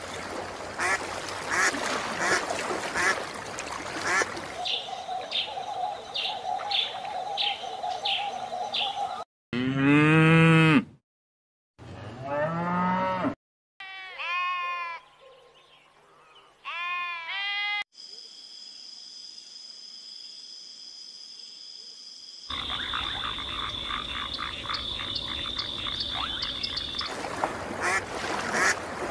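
A montage of animal calls cut abruptly one after another: fast clicking croaks, a quick series of short high calls over a steady tone, loud pitched calls that rise and fall, sheep bleating about halfway through, then steady high trilling with rapid repeated chirps.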